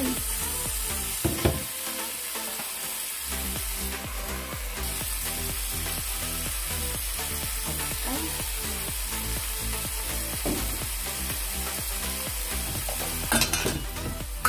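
Steady hiss of water running into a steel kitchen sink while rice is rinsed in a metal rice-cooker pot. The pot knocks against the sink a couple of times about a second in and again near the end.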